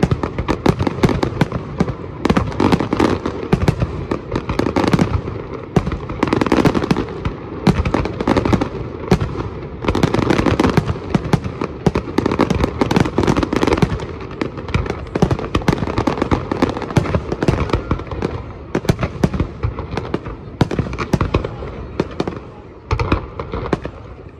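Fireworks display in full barrage: aerial shells bursting one after another, many sharp bangs and pops with no break.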